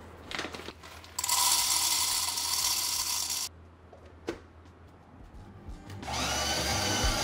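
A small electric motor runs in two bursts, the first about two seconds long and the second starting about six seconds in, each a whine over a grinding noise. A few small clicks and knocks fall between the bursts.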